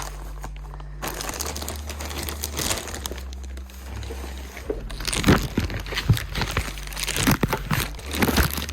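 Packing wrap being crinkled and torn off new car body parts during unboxing, with sharper crackles and rips in the second half.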